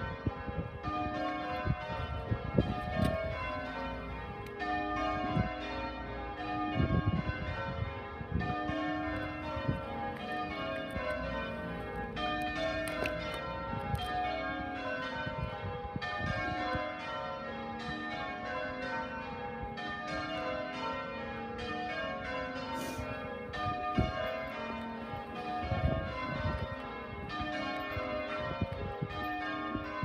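Church bells ringing a peal, many bells struck one after another in a steady, unbroken sequence, typical of change ringing. Low thuds and rumbles on the microphone come and go underneath.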